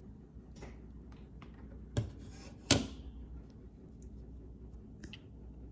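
A low steady hum with scattered light ticks and two sharp clicks, about two seconds in and again a little later, the second the louder: small computer parts being handled and clicked into place.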